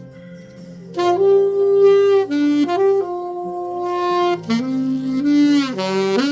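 Selmer Mark VI alto saxophone with a Theo Wanne Lakshmi mouthpiece, played dry with no added effects over a soft backing track. The saxophone comes in about a second in and plays a melody phrase of long held notes.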